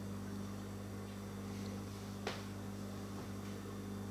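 Quiet room tone with a steady low hum, broken by a single light click about two seconds in.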